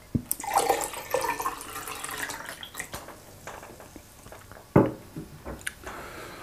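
Close-miked wet mouth sounds of eating fufu and vegetable soup: slurping and smacking for the first few seconds, then quieter chewing clicks, with one sharp knock just before five seconds in.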